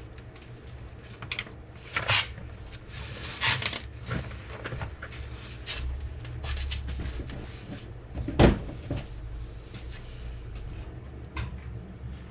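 Scattered clicks, clanks and short scrapes of hand tools working on the car, with one sharp, loud knock about eight seconds in.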